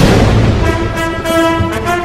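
Orchestral outro music: a heavy hit at the start, then a held chord from about half a second in.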